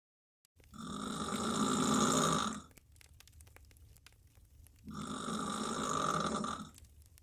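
A woman snoring hard on her back with her mouth wide open: two long, rough snores about four seconds apart, each swelling and then dropping off.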